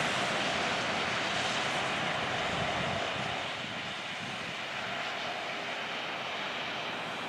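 A steady, distant engine-like rushing noise, with no distinct tones, that eases off slightly about three to four seconds in.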